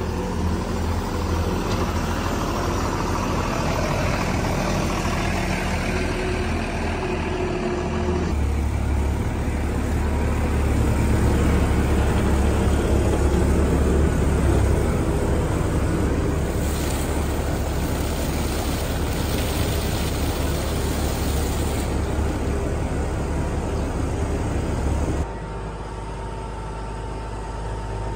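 Farm machinery engines running steadily, a tractor driving the vertical twin TMR mixer and a skid loader loading feed into it. The engine sound shifts abruptly twice, about a third of the way in and near the end.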